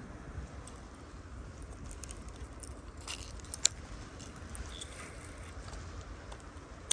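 Baitcasting rod and reel handled for a cast: a few small clicks and one sharp click a little past halfway, over a steady low rumble.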